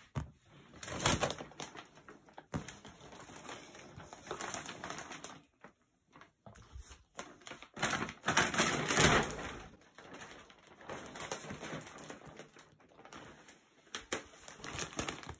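Plastic wrapping on a rolled Casper foam mattress crinkling and rustling as the mattress is handled on the wooden bed slats, in irregular spells. The loudest spells come about a second in and around eight to nine seconds in.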